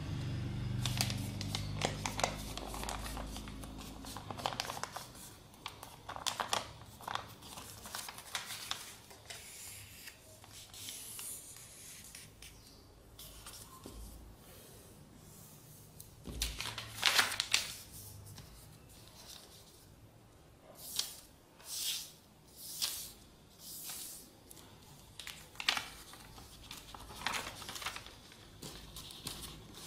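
A sheet of white paper being folded by hand: irregular crinkling and rustling, with sharp swishes as folds are creased flat. The loudest comes about seventeen seconds in, and a run of about four follows a second apart a little later.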